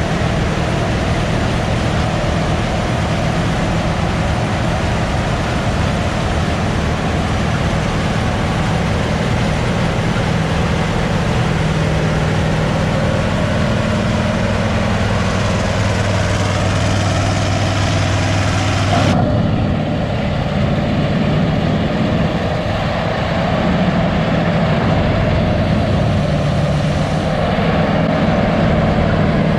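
Diesel engine of heavy harvest machinery running steadily, with a low, even engine hum under a wash of mechanical noise. About 19 seconds in, the sound changes abruptly as the high hiss drops away.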